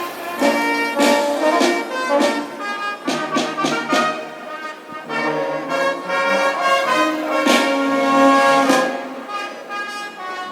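Brass band playing, with trumpets and trombones carrying the tune over sharp percussion strikes.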